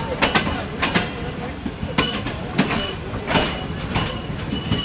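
Passenger train coaches rolling slowly into a station, wheels clacking irregularly over rail joints above a steady rumble, with now and then a brief high squeal.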